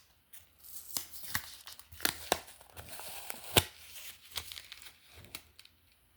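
Plastic wrapping and tape crinkling and tearing as an item is unwrapped by hand, in a run of crackles and snaps with the sharpest snap about three and a half seconds in.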